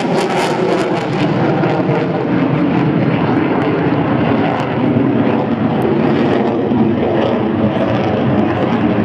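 F/A-18 Hornet's twin General Electric F404 jet engines at high power during a display pass: a loud, steady jet roar with crackle, strongest in the first second or so.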